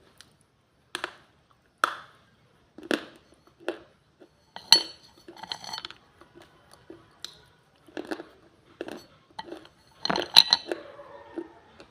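Baked clay being bitten and chewed with a mouth close to the microphone: a run of separate sharp, brittle crunches roughly once a second, the loudest a little under five seconds in and about ten seconds in.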